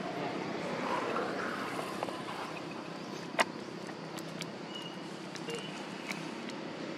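Outdoor background with the steady low hum of a distant motor, broken by a few sharp clicks, the loudest about halfway through, and two brief high peeps a little later.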